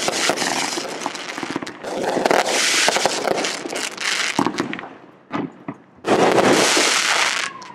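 Aerial fireworks bursting: dense crackling for about four seconds, a few separate sharp bangs, then another loud stretch of crackling near the end.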